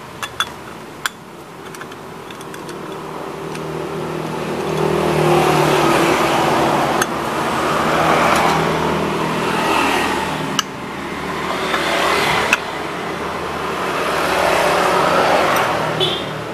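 A motor-driven tool running with a steady low hum and a rough, noisy sound over it that builds over the first few seconds, dips about ten seconds in, swells again and fades near the end.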